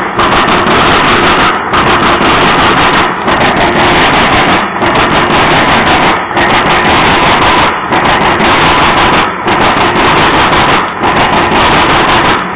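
Freight train of covered hopper cars rolling past close by: a loud, steady rumble of steel wheels on rail, with a brief regular dip and beat about every second and a half as the cars go by.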